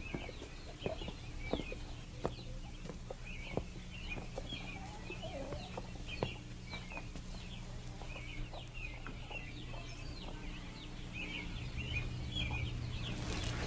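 Chickens clucking, with many short high chirps repeating throughout over scattered light knocks.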